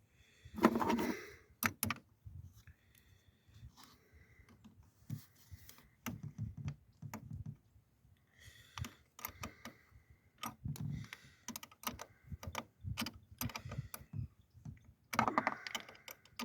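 Irregular metallic clicks, taps and scrapes of hand tools working a car battery terminal clamp, with a louder scraping rattle about a second in and another near the end.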